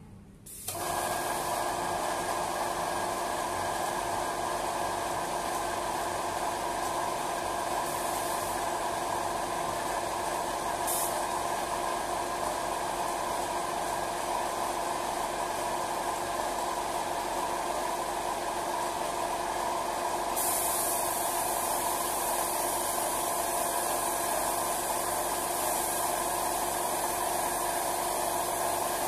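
Air compressor switching on about a second in and running steadily, a hum with several steady tones over a hiss. About 20 seconds in, the sharper high hiss of a gravity-feed spray gun spraying paint joins it.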